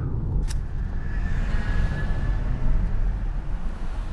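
Car interior noise while driving: a steady low rumble of engine and tyres, with one sharp click about half a second in.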